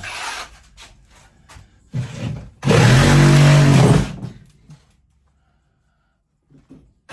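A few knocks and clatters, then a motor runs loudly and steadily for about a second and a half and winds down, followed by near silence.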